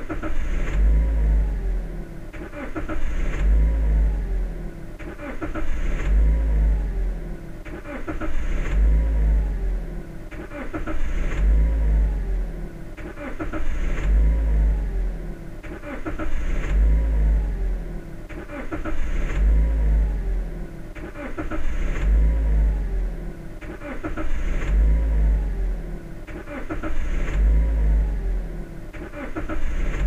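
Car engine being cranked by its starter and firing up with a short rev whose pitch falls away, the same start repeated over and over about every two and a half seconds as a looped sound effect.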